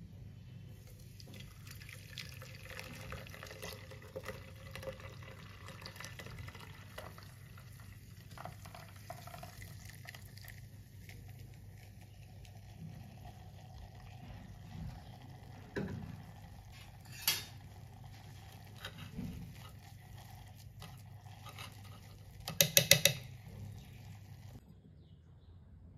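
Hot ghee and browned milk solids poured from a pan through a steel mesh strainer into a steel container, with a steady liquid pour and the scrape of a spoon on metal. A few single knocks come partway through. Near the end there is a quick run of sharp metal clinks, the loudest sounds.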